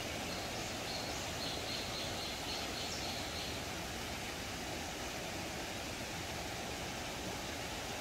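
Steady rush of a shallow rocky stream flowing, with a faint high, broken tone during the first three seconds or so.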